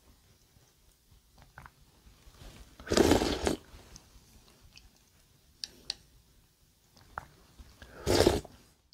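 A person eating from a bowl with a spoon: two loud slurping mouthfuls, one about three seconds in and one near the end, with a few light clicks of the spoon on the bowl between them.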